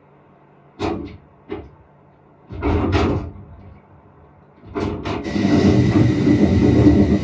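Film soundtrack effects played over Klipsch in-ceiling speakers: a few sharp knocks, a short noisy swell, then from about two-thirds of the way in a loud sustained rush with a steady high tone underneath.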